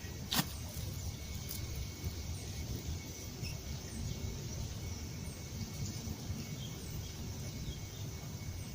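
Outdoor rural ambience: a steady low background rumble with faint, repeated high bird chirps and a thin steady insect drone, broken by a single sharp click about half a second in.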